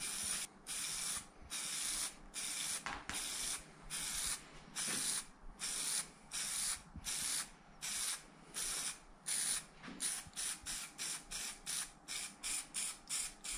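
Aerosol can of gloss black spray paint hissing in a run of separate short bursts, about one a second. Near the end the bursts turn shorter and quicker, two or three a second.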